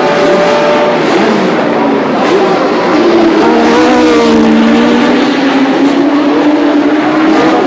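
1970s Formula One race-car engines running, their pitch sliding down and then rising again, with more than one engine heard at once.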